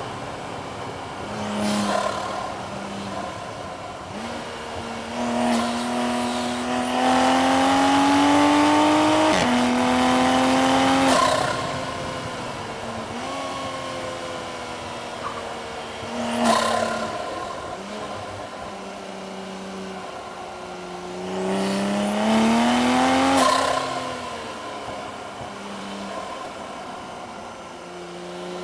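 Toyota Supra MK5's turbocharged engine under hard acceleration on track: two long full-throttle pulls with the engine note climbing steeply, the first broken by an upshift and a second climb, each followed by the revs falling back as the driver lifts.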